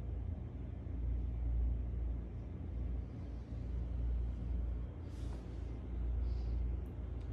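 Kitten purring close up: a low, steady rumble that swells and ebbs in level. A soft rustle of a hand stroking its fur comes in about five seconds in.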